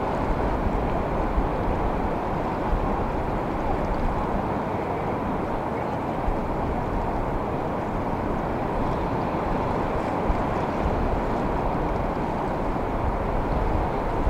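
Steady rushing wash of ocean swell and distant surf, with an uneven low rumble of wind on the microphone.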